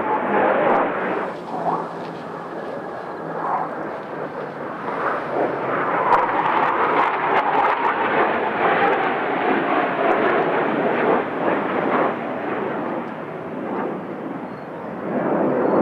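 Blue Angels F/A-18 Hornet jets flying past: a steady jet roar with a faint falling whine, louder in the middle and easing near the end.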